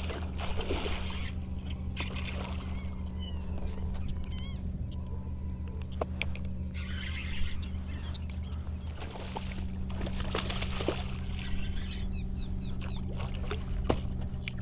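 A hooked fish splashing and thrashing at the water's surface in several bursts, over a steady low motor hum.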